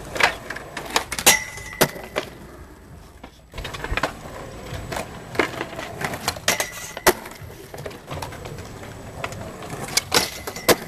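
Skateboard clatter on concrete: wheels rolling with a series of sharp clacks as boards strike and land on the concrete.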